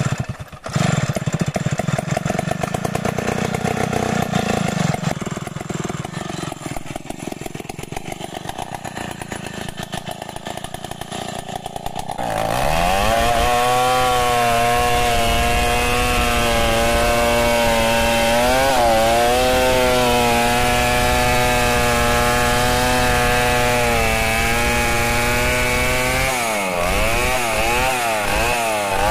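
A Tecomec 070 two-stroke chainsaw starts and idles unevenly. About twelve seconds in it is revved to full throttle and cuts into the base of a tree trunk, its pitch dipping twice as the chain bogs in the wood.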